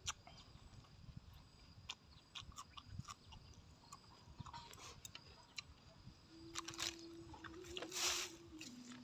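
A man eating roast duck up close: chewing and lip-smacking with many small wet mouth clicks. About six seconds in a steady low hummed tone holds for some two seconds, with a loud breathy burst, the loudest sound, near the end.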